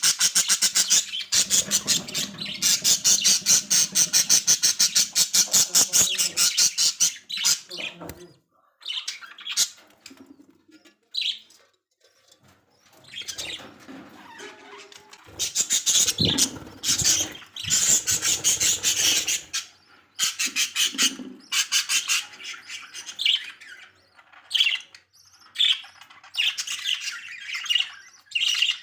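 Budgerigars chattering and chirping: a fast, steady run of repeated high chirps for about the first eight seconds, then scattered chirps and squawks in short bouts.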